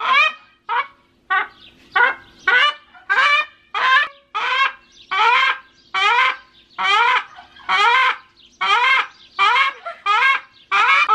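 A rooster screaming over and over while he is held and handled, about two loud calls a second.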